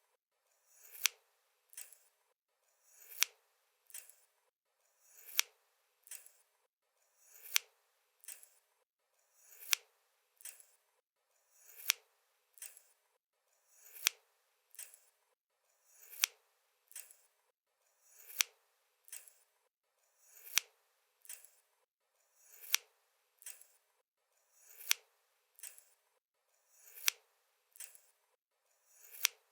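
Scissors snipping in a steady rhythm: a sharp snip followed by a lighter click, the pair repeating about every two seconds.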